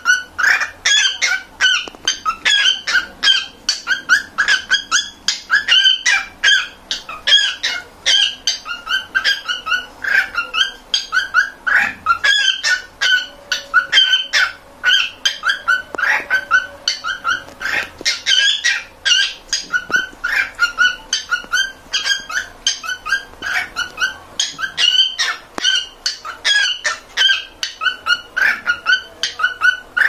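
Male cockatiel singing: a continuous run of quick whistled chirps and warbles, several a second.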